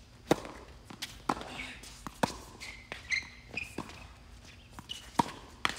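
Tennis ball struck by rackets and bouncing on a hard court during a doubles rally: a run of about ten sharp pops, starting with a serve about a third of a second in.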